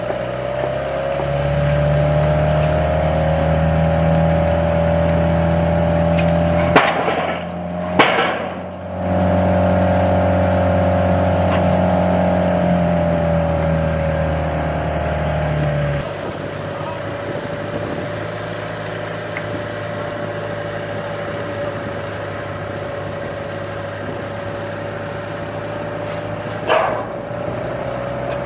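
Pile-driving rig's engine running steadily with a high whine over its drone. The low drone eases off about halfway through. Two sharp knocks come about seven and eight seconds in, and another near the end.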